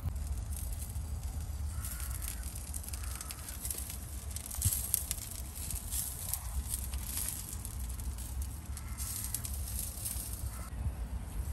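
Steady low rumble of wind on the microphone, with scattered faint crackling in a few short spells.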